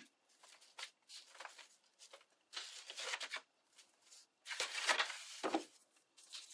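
Book-page paper rustling and crinkling in short irregular bursts as paper petals are handled and pressed into place, loudest and longest about five seconds in, with a couple of soft knocks there.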